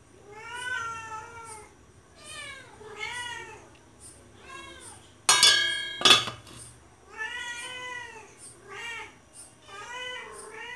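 A cat meowing over and over, about eight short calls that rise and fall in pitch. About halfway through, the aluminium pressure cooker lid clangs twice with a metallic ring as it is put back on the pot.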